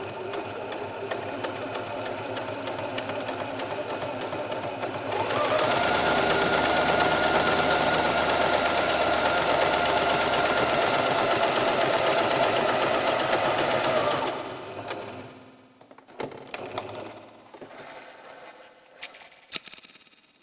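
Steady mechanical clatter of a running machine that grows louder about five seconds in, holds steady, and fades out after about fourteen seconds, leaving a few scattered clicks.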